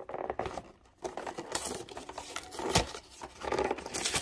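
Cardboard trading-card collection box being pried open by hand: paperboard scraping and rustling in uneven patches as the box is pulled apart, with one sharp knock a little under three seconds in.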